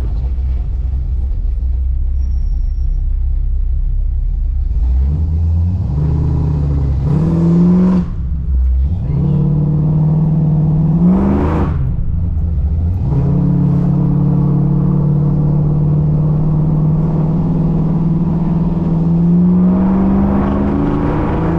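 Car engine breathing through a newly built custom exhaust. It idles with a low rumble, is revved up twice, with a sharp blip about halfway through, then is held at a steady raised speed that creeps up near the end. It is running a little rich at about 11:1 air-fuel.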